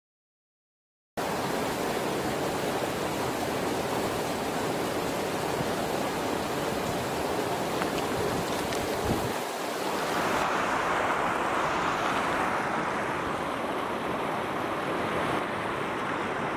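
Shallow mountain stream rushing over rocks: a steady rush of water that starts after about a second of silence and grows less hissy about ten seconds in.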